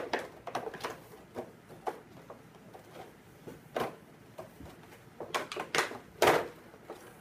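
Cardboard toy box being opened by hand: irregular clicks, scrapes and rustles of the packaging being worked, with a louder, longer scrape about six seconds in.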